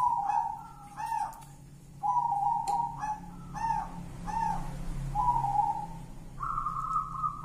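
Zebra dove (perkutut) cooing: short coo notes in several phrases, ending in one longer, slightly higher note.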